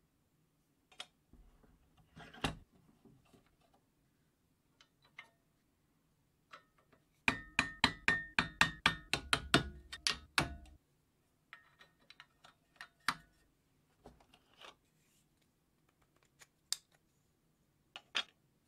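Hammer blows on a wood chisel cutting a recess in a sapele handle: a quick run of about fourteen sharp strikes, roughly four a second, each with a short metallic ring, in the middle of the stretch. Before and after it come scattered single clicks and knocks of wood and steel parts being handled.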